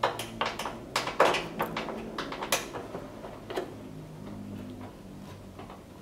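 A quick series of sharp clicks and light knocks from hands handling parts or tools, about a dozen in the first three and a half seconds, over a faint steady low hum.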